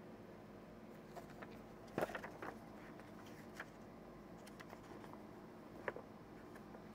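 Paper handling: a board-game rulebook's pages being turned, a scatter of soft rustles and taps with the loudest about two seconds in and another near the end, over a faint steady room hum.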